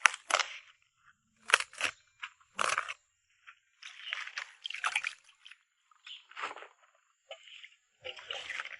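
Irregular crunches, rustles and light knocks from handling camp-cooking gear and ingredients, spaced out with short pauses.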